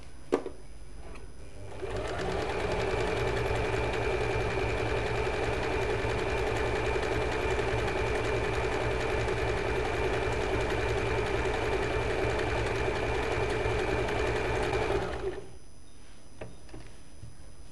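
Usha Janome Fashion Maker electric sewing machine stitching a row of its built-in decorative embroidery stitch, running steadily for about thirteen seconds with a high whine, then stopping abruptly. A sharp click comes just before it starts, and a few faint clicks after it stops.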